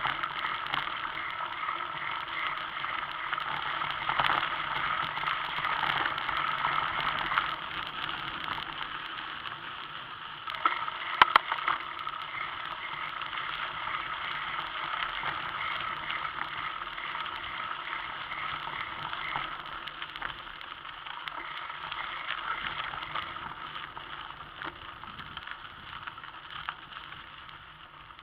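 Bicycle riding along a dirt forest track: steady tyre and rattle noise, with a short clatter about eleven seconds in, growing quieter near the end.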